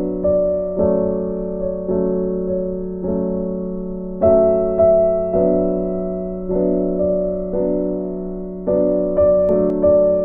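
Background piano music: a slow melody of single notes, each struck and fading, over a steady low tone.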